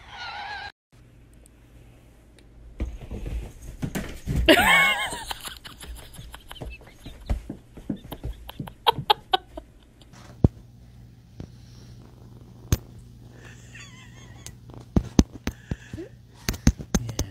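Cat meowing in short calls. The loudest is a long meow that falls in pitch about four and a half seconds in. Scattered sharp clicks and taps come between the calls.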